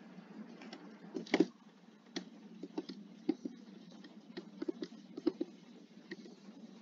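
Computer keyboard keys being pressed one at a time at a slow, uneven pace, single clicks with irregular gaps; a louder pair of strokes comes about a second and a half in.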